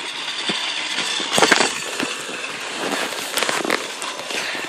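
Plastic toy trains and track being handled: scattered clicks and knocks, a louder clatter about a second and a half in, over a steady hiss.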